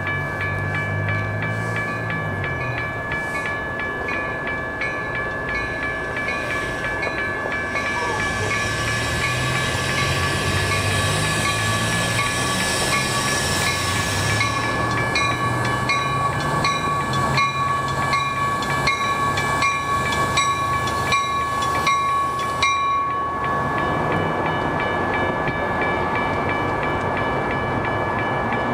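Grade-crossing warning bell ringing at an even rhythm of about two strokes a second, stopping about 23 seconds in, over the low drone of a Metra commuter train's F40PH diesel locomotive as the train pulls into the station.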